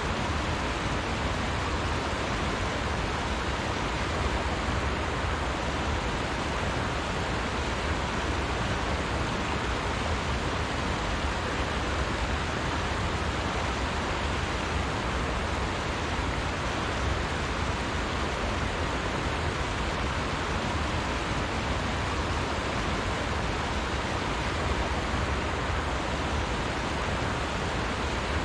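Steady rush of a shallow, rocky trout stream running through a riffle.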